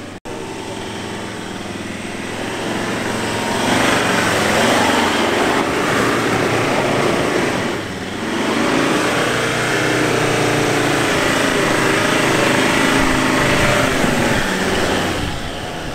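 Ford Endeavour (Everest) SUV engine revving hard as it drives sideways across a sand dune with its wheels spinning and throwing sand. The revs climb about four seconds in, dip briefly near the middle, then hold high.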